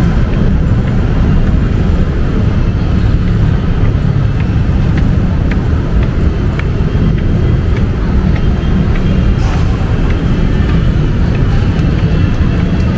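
Steady low rumble of heavy road traffic, with engines and tyres of passing cars and other vehicles blending together.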